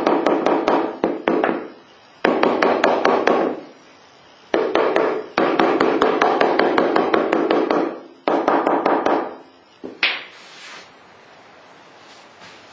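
Rubber mallet tapping rapidly on a porcelain floor tile in five quick runs, bedding the freshly laid tile down into the mortar because it sits higher than its neighbours. A single knock about ten seconds in.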